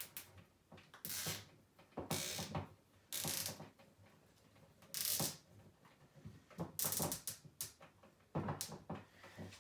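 Nylon zip ties being pulled tight around a bundle of cables in wire loom, a series of six or seven short ratcheting zips.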